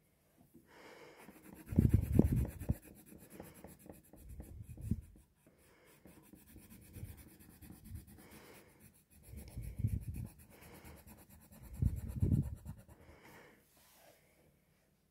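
Coloured pencil shading on paper in quick, scratchy back-and-forth strokes, broken by several dull bumps and rubs of the hand and paper, the loudest about two seconds in and again near the end.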